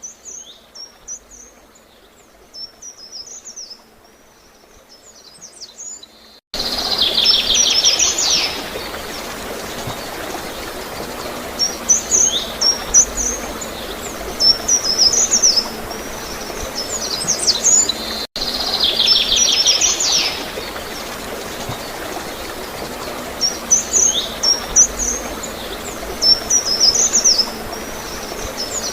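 Songbirds chirping and singing in short high phrases, faint at first. About six seconds in, a steady rush of flowing, gurgling water cuts in abruptly, and the birdsong gets louder. A fast buzzy trill comes in twice over the water.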